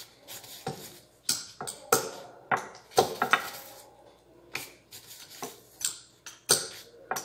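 Wooden rolling pin rolling thin dough on a countertop, with irregular knocks and rubbing as the pin is set down and pushed, and soft rustles as the dough sheet is lifted off with gloved hands.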